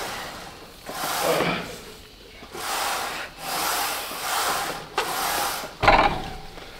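Hard, forceful breaths, about one every second, as a person works through leg extension reps, with a sharp knock from the plate-loaded machine near the end.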